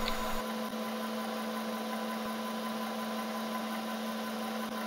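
Milling machine spindle running with a steady hum, turning a 5 mm carbide end mill at the hole where a sheared bolt is being milled out.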